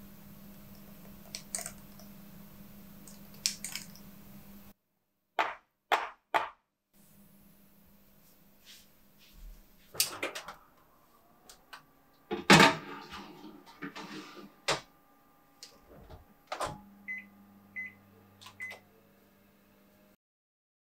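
Baking handling sounds: light clicks of a metal scoop dropping batter into paper muffin cups, then three sharp knocks. A countertop oven's door is opened, the muffin tin goes in with some clatter, and the door shuts with a loud thud, followed by three short beeps from the oven's control panel as it is set.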